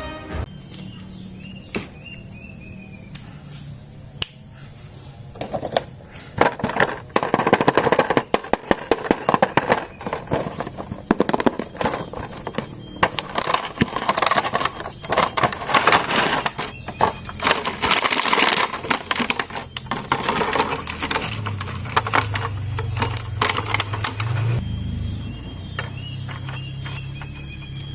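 Plastic packaging being handled and unwrapped, a dense run of quick crinkles and crackles through the middle. A faint steady high-pitched tone sits underneath.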